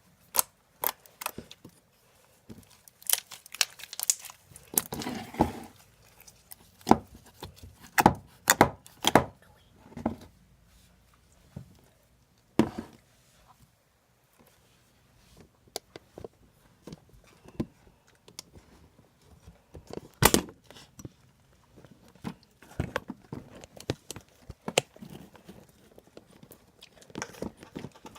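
Hands working slime and its containers: irregular sticky clicks, pops and crinkling, with scattered knocks and one loud knock about twenty seconds in.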